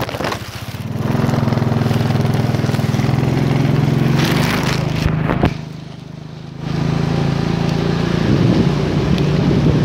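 Motorcycle engine running steadily under a hiss of rain and wind as it is ridden through heavy rain. The engine note drops away for about a second just past halfway, then picks up again.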